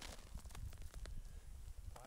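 Faint scattered crunches and clicks of boots shifting on packed snow, over a low rumble of wind on the microphone.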